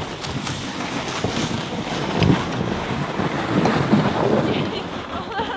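Wind buffeting the microphone over a steady rushing noise, with irregular low gusts.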